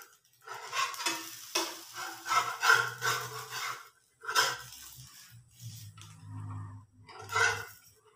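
Metal spatula scraping and pressing on a nonstick frying pan as a pancake fries, in irregular strokes, dense in the first few seconds and then spaced out. Near the end the spatula slides under the pancake to flip it.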